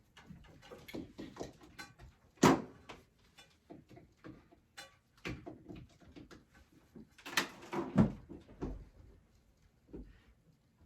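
Knocks and clatter of a plastic robot-vacuum charging dock being handled and set down in place. A sharp knock comes about two and a half seconds in, and another cluster of knocks follows around seven to eight seconds in.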